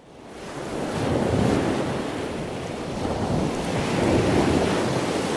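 Surf washing on a beach, with wind buffeting the microphone; it fades in over the first second and then rises and falls gently with the waves.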